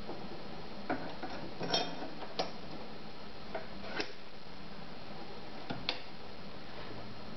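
Irregular light clicks and taps, about seven in all, of a metal slide plate being handled and fitted onto the bed of a Neckermann sewing machine over the bobbin area.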